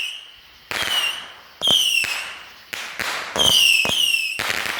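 A 300-shot firework cake firing in rapid succession: a sharp bang about once a second, some closer together near the end, each followed by a short high whistle that falls slightly in pitch.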